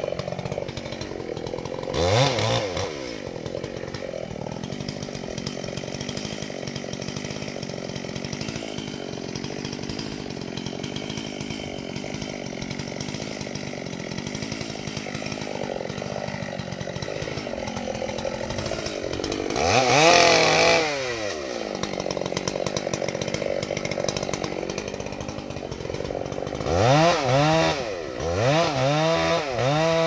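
Two-stroke chainsaw idling, revved up and let back down about two seconds in, again near twenty seconds, and twice in quick succession near the end. It then holds at full revs as it starts cutting into a casuarina trunk.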